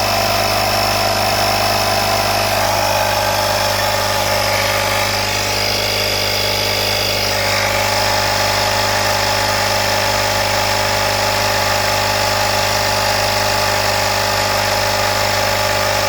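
12-volt portable tire inflator's compressor running steadily while pumping air into a car tire.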